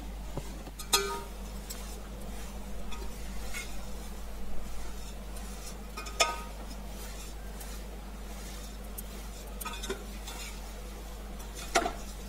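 Metal spatula stirring poha (flattened rice) as it roasts in a large metal pot. The spatula strikes the pot with sharp ringing clinks, three loud ones about one second in, about six seconds in and near the end.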